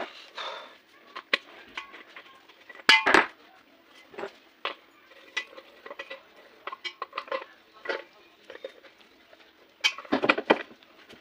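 Irregular metallic clinks and knocks as a mixer-grinder jar and its metal parts (socket, coupler, blade) are handled and worked on, with louder clusters of knocks about three seconds in and near the end.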